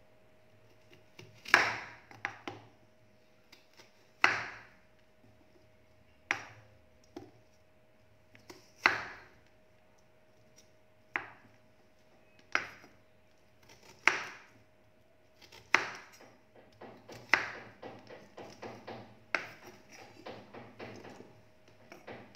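Chef's knife cutting through cucumber and striking a wooden cutting board, one firm cut every second or two. Near the end comes a run of quicker, lighter chops. A faint steady hum sits underneath.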